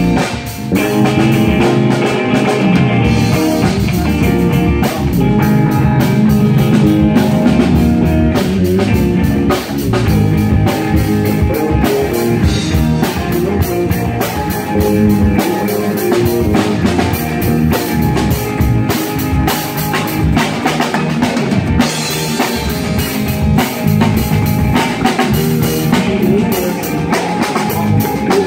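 A rock band playing live: electric guitar, electric bass and a drum kit going steadily and loudly together.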